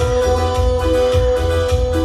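Chilena mixteca dance music, played loud: one long held note over a pulsing bass beat.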